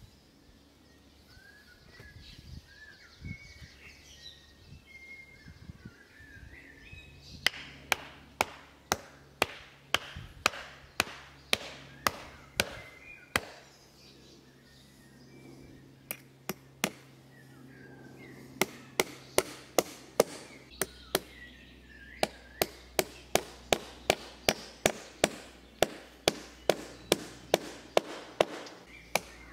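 A hammer pounding a wooden stake into the ground with sharp, evenly spaced blows. They begin about seven seconds in at roughly two a second, pause briefly, then resume faster for the rest of the time. Birds chirp in the quieter opening seconds.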